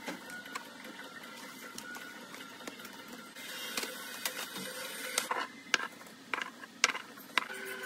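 A thin plastic bag rustling and packaged toiletries (plastic toothbrush blister packs, deodorant sticks) being handled and set down on a counter, with a handful of sharp plastic clacks in the second half.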